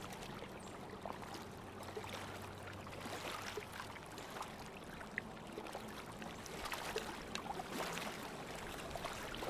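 River water lapping in small ripples: a soft, steady wash with small splashes and trickles scattered throughout.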